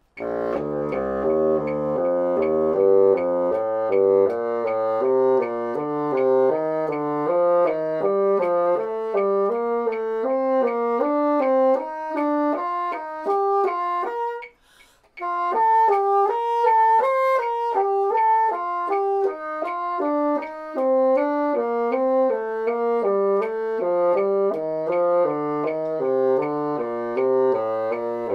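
Bassoon playing a scale in thirds: a steady chain of short, connected notes climbing for about fourteen seconds, a brief pause about halfway, then the pattern coming back down.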